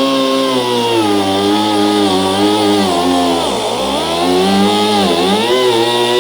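Die grinder with a cut-off wheel cutting through a fiberglass cowl, a high whine whose pitch sags repeatedly as the wheel bites under load and climbs back. The deepest drop comes about three and a half seconds in.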